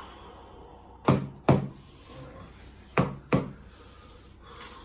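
Mallet striking a wooden block held against a person's spine: four sharp knocks in two pairs, each pair less than half a second apart, as the practitioner taps to adjust the vertebrae.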